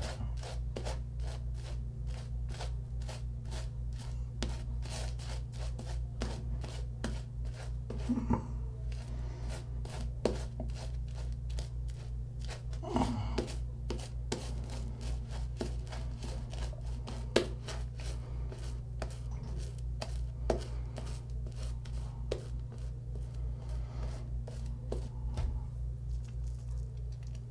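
Badger-hair shaving brush scrubbing shave-cream lather onto a stubbled face: quick, rhythmic, scratchy bristle strokes, several a second, with a few louder clicks, over a steady low hum.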